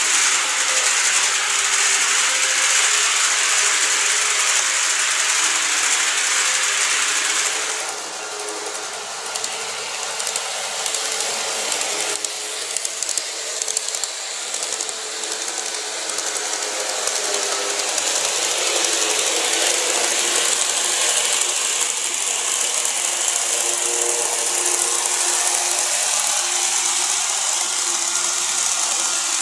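Model trains (a TOMIX 209 series and a KATO E259 series) running on the track: a steady mechanical whir and rattle of the motors and wheels on the rails. It drops for several seconds about eight seconds in, then builds back up as a train comes closer.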